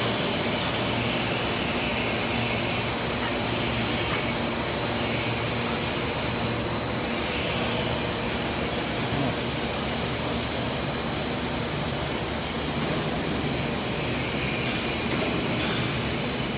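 Steady running noise of a PVC foamed board extrusion line in operation, with a thin, steady high whine over it.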